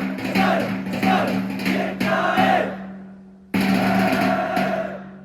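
A group chanting and shouting in unison over backing music: short rhythmic calls at first, then long held group shouts that start suddenly and fade away.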